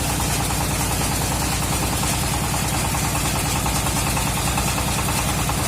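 An engine running steadily at idle, with an even pulse and no change in speed.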